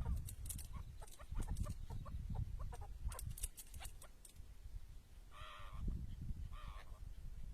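Chukar partridge giving two short calls, each about half a second long, a little after halfway through. Many sharp clicks and a low rumble run underneath.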